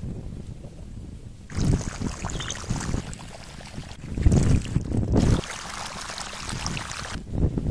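Wind rumbling on the microphone, then from about a second and a half in, irrigation water running and splashing through a flooded furrow and over stones, with gusts of wind still on the microphone.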